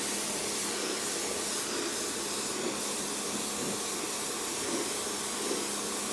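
Pressure washer jet spraying water onto car bodywork to rinse off pre-wash: a steady hiss of spray with a steady low hum under it.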